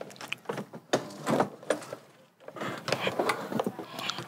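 Motor scooter being manoeuvred by hand, with irregular clicks, rattles and scuffs.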